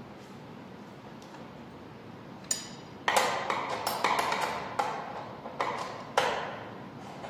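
Hand ratchet clicking as it runs down oil pan bolts on an engine block: one click about two and a half seconds in, then several bursts of rapid clicking, each opening with a sharper click.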